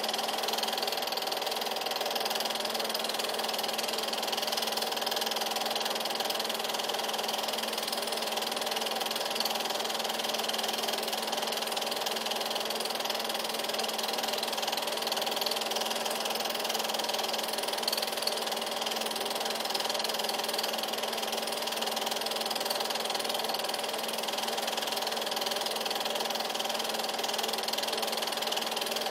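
Steady mechanical whir and hum of an 8mm film projector running.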